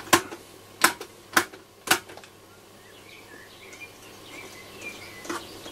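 Four sharp clicks in about two seconds from the push-button waveband switches of a Dynatron Atlantis transistor radio, then only a faint hum and a few faint chirps. The set gives no proper reception: that band is not working.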